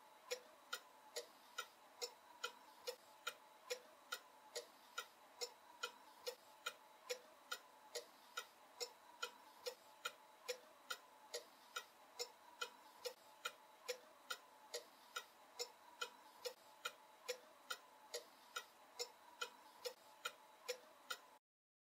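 Pendulum clock ticking faintly and evenly, about two and a half ticks a second, cutting off suddenly near the end.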